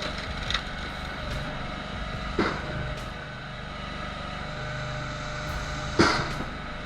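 Engine of a 35-horsepower wood splitter running steadily, with a few sharp knocks of wood, the loudest about six seconds in.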